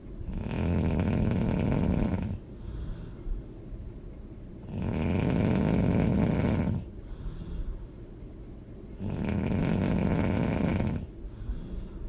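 A person snoring loudly and hard: three long snores about four seconds apart, with quieter breathing between them.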